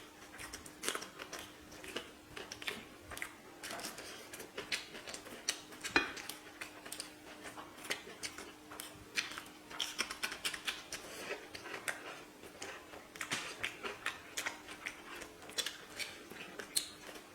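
People eating chicken biryani: irregular small clicks, crackles and chewing noises with light clinks on plates, over a faint steady hum. One sharper knock comes about six seconds in.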